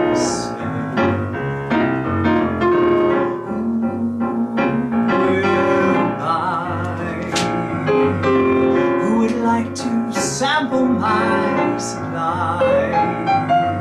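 Piano accompanying a man singing a slow cabaret song, his voice holding long notes with vibrato over the chords.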